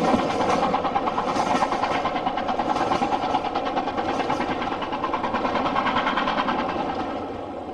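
Steam-hauled train behind LMS Black 5 locomotive No. 44767 running past with a rapid, even clatter that gradually fades away.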